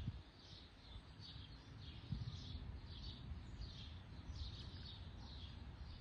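A bird chirping over and over, short high calls about twice a second, faint and steady.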